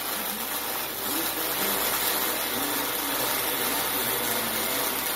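Electric welding arc burning on sheet metal, a steady unbroken hiss.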